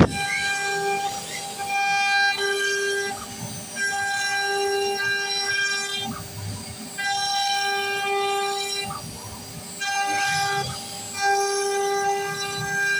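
CNC router spindle running with a steady high whine and overtones, fading and returning every second or two as the machine works.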